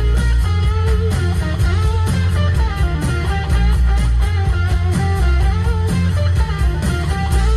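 Guitar-driven music with bass and a steady beat.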